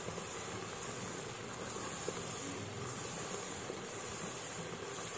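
Tomato, onion, ginger and garlic masala paste sizzling steadily in hot oil in a karahi, with small pops, as a wooden spatula stirs it. The paste is being fried until the oil separates out.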